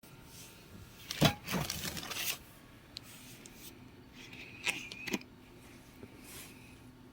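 Household items being handled: a sharp knock with a scraping rustle about a second in, then a short squeak and a click near five seconds.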